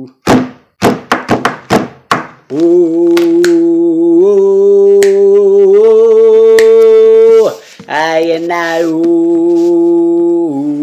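A man's unaccompanied singing: a quick run of vocal percussion pops and clicks, then a long held, hummed 'ooh' that steps up in pitch twice, breaks briefly, and carries on.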